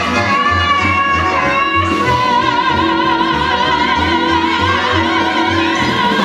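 A female singer holds a long high note with vibrato over a band accompaniment with a pulsing bass line. It is the song's final sustained note, with applause following just after.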